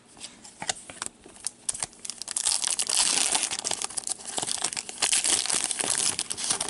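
Foil wrapper of a hockey card pack crinkling in gloved hands and being torn open. Scattered crackles at first, then a dense, steady crinkling and tearing over the last few seconds.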